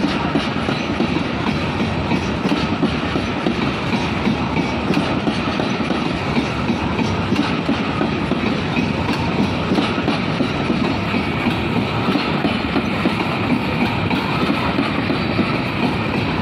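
Freight train's coal hopper wagons rolling past close by: a steady rumble of steel wheels on rail, with the clickety-clack of wheels passing over the rail joints.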